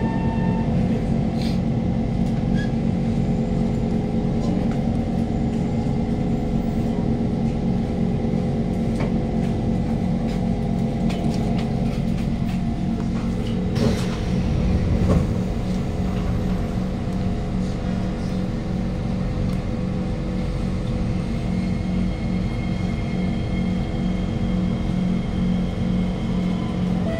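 Steady low hum and rumble inside a Kawasaki Heavy Industries C151 train car standing at a station, with a few knocks about halfway through.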